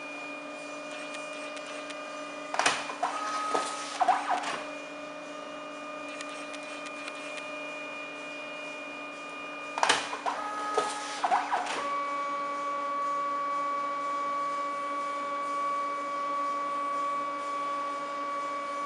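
A HiTi dye-sublimation photo printer running a print job. Its motors whine steadily, with two bursts of clicking and clunking about 3 and 10 seconds in as the paper and ribbon shift between colour passes. After the second burst the whine carries on at a different pitch.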